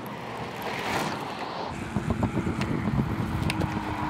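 Wind noise on the microphone, then about two seconds in a cyclocross bike rattling and knocking as it comes down a bumpy grass slope close by. Near the end a faint steady hum joins in.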